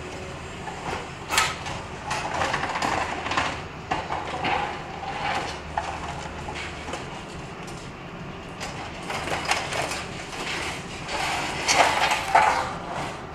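Caterpillar hydraulic excavator demolishing a masonry and timber building: its engine runs with a steady low hum while the grapple tears into the structure, with irregular crashing, crunching and scraping of falling debris. A sharp crash comes about a second in and a cluster of loud crashes near the end.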